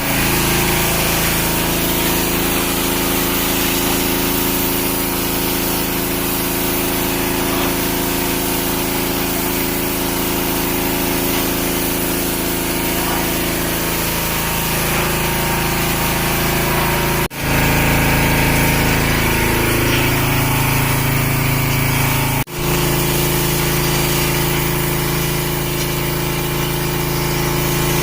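Gas-powered pressure washer's small engine running steadily under load. Its note shifts for a few seconds in the middle, and the sound breaks off for an instant twice.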